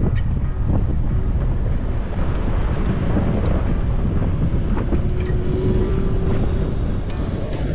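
Wind buffeting the microphone of a camera mounted outside a Nissan Patrol GR Y60, mixed with the 4x4 running along a dirt track. The noise is steady, heavy and low, with a few faint clicks.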